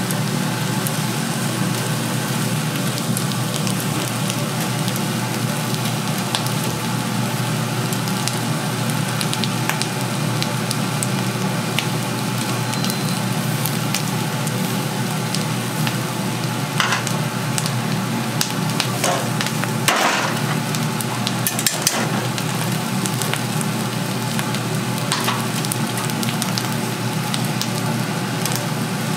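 Chicken feet sizzling as they cook, over a steady low hum. A few sharp clicks and scrapes from a utensil come about two-thirds of the way through.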